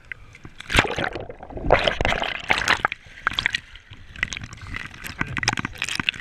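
Kayak paddle blades dipping and splashing in the water close by, with water dripping and spattering off the paddle and arm. There is a loud splash about a second in and a run of splashes around two seconds in.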